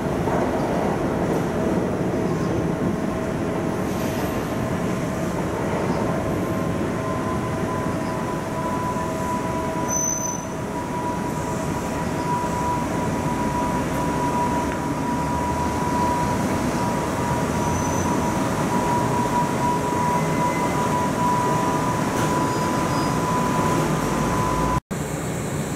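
Electric commuter train running, a steady rumble with a high whine that holds one pitch for most of the time. The sound cuts out for an instant near the end.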